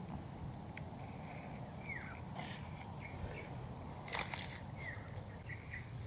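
Footsteps and rustling through undergrowth and dry leaf litter, with a sharp crackle about four seconds in. Short chirping bird calls, some falling in pitch, repeat in the background.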